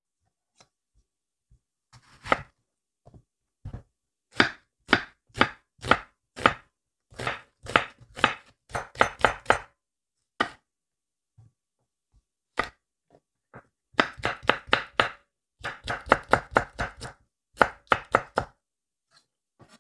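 Chef's knife slicing onion and then red and green chilli peppers on a wooden cutting board: sharp knife knocks on the wood in runs, about two a second at first, much quicker in the later runs, with short pauses between.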